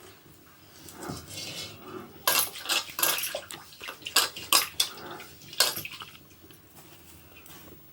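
Metal cooking pots and utensils clinking and knocking against each other in a run of sharp strikes, most of them between about two and six seconds in.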